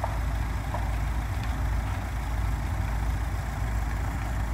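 Steady low rumble of idling heavy diesel engines, the fire trucks running at the scene, with a few faint ticks.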